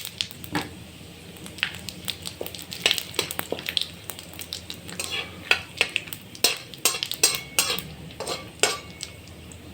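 Whole spices frying in hot mustard oil in a kadai, sizzling while a metal spoon stirs them and repeatedly scrapes and clinks against the pan, with the clinks most frequent in the second half.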